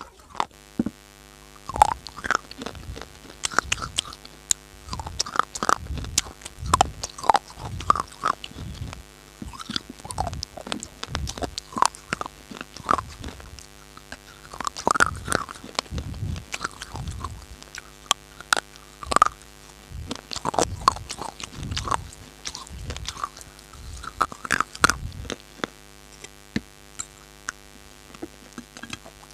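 Close-miked chewing and crunching of hard baked clay (mitti): irregular sharp crunches, several a second in bursts, with a steady hum underneath.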